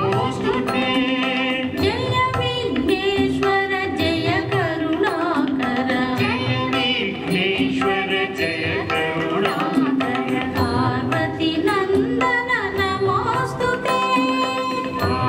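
South Indian devotional music: a voice singing a winding melody over a steady drone, with a hand-drum rhythm.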